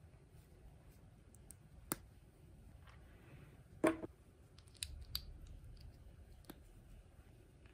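LEGO plastic bricks handled with cotton-gloved hands: a single click about two seconds in, then a brief clatter as loose pieces are picked from a pile on the table about four seconds in, followed by a few sharp clicks as bricks are pressed together.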